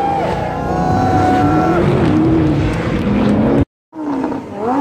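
Sports car engines revving hard, their pitch climbing and falling. The sound drops out completely about three and a half seconds in, then a car's engine revs up sharply again.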